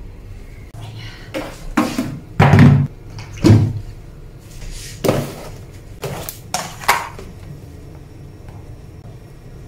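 Kitchen things being handled and set down: a string of about seven separate knocks and clunks, the loudest two coming about two and a half and three and a half seconds in.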